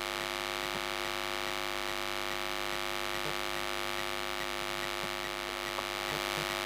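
Steady electrical mains hum with many overtones, unchanging throughout, with a few faint short scratches of a marker writing on a whiteboard.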